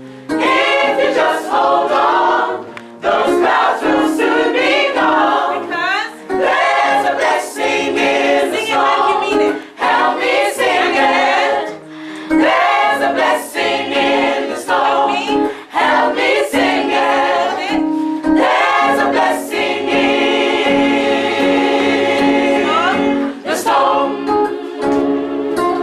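Gospel choir singing in parts, in short phrases broken by brief pauses, over a steady held accompaniment note. Near the end the voices hold a long chord.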